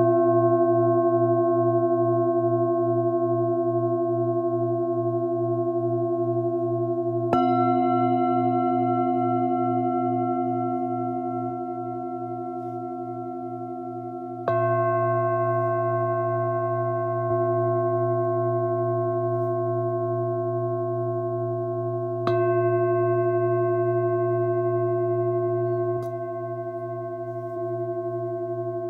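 Tibetan singing bowls struck in turn, a fresh strike about every seven or eight seconds, each leaving a long ring of several steady tones that overlap, waver and slowly fade.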